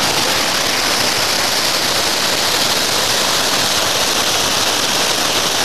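Waterfall rushing: a steady hiss of falling water that stays even throughout.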